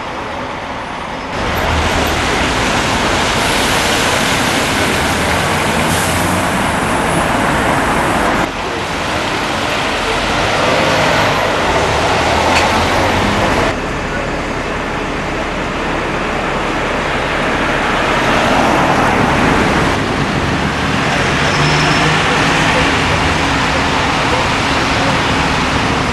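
Motor vehicles running in street traffic: a steady engine and road noise that changes suddenly in level and character several times.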